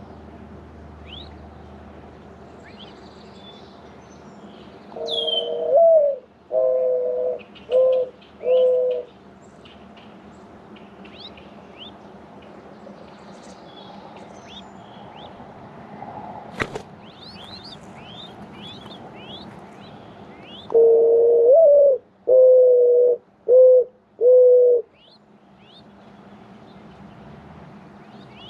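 Mourning dove giving its perch coo twice: a long rising-then-falling note followed by three shorter coos, with about ten seconds between the two songs. Small birds chirp faintly and high in the background, and there is one sharp click about two-thirds of the way through.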